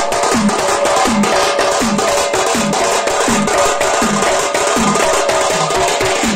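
Mathalam barrel drum played with a frame drum in a steady dance rhythm: about two and a half deep beats a second, each dropping slightly in pitch, under a held melodic line.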